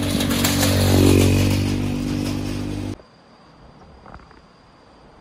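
Small motor scooter's engine running as it rides up close and passes, getting louder to a peak about a second in, then stopping abruptly; only quiet open-air background follows.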